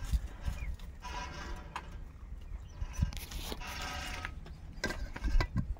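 Goats bleating, two calls about a second long each, at about one second and about three seconds in, with a few light knocks between them.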